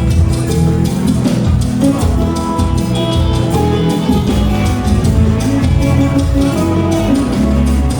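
Church band music with guitar and drum kit playing over a heavy bass line, keeping a steady beat.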